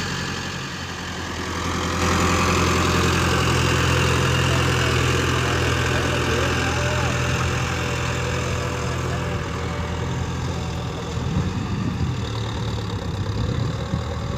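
Mahindra Arjun Novo tractor's diesel engine running steadily under load as it pulls a cultivator through the soil, getting a little fainter and rougher near the end as it moves away.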